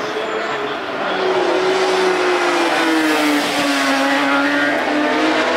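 Sport motorcycle racing past at high speed, its engine note falling slowly in pitch as it goes by, then rising again near the end as it accelerates.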